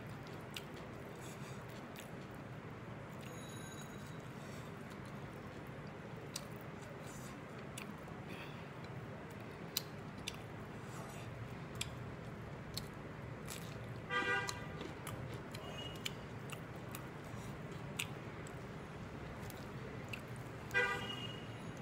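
Eating by hand: fingers working rice on a plate and chewing, with small scattered clicks over a steady low background noise. Two short pitched toots stand out, one about 14 seconds in and one near the end.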